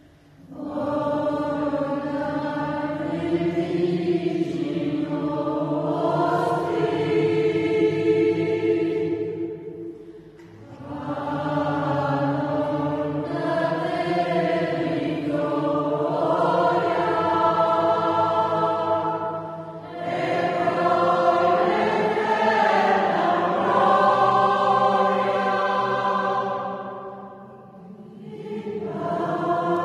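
Choir singing in long held phrases, several voices together, with short breaths between phrases about every ten seconds.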